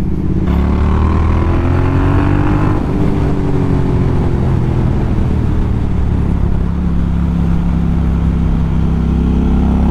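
Triumph Speed Twin 1200's parallel-twin engine running while the motorcycle is ridden: the engine note rises over the first couple of seconds, eases back, then holds steady.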